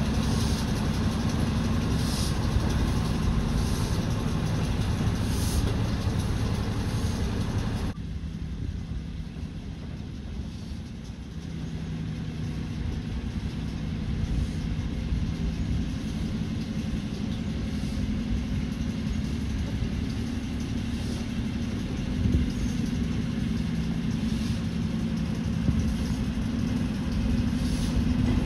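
Steady low mechanical rumble with a low hum. Short hissing pulses come about every second and a half at first. About eight seconds in, the sound drops off abruptly and then slowly builds back to a steady rumble.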